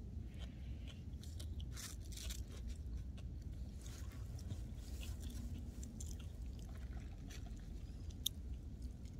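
A person chewing chow mein, with scattered soft mouth clicks and crunches and one sharp click about eight seconds in, over a steady low rumble.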